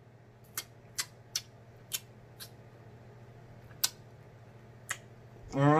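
Mouth sounds of eating chicken wings: a handful of short, sharp smacks and clicks from chewing and licking fingers, spaced irregularly over a few seconds. A voice starts near the end.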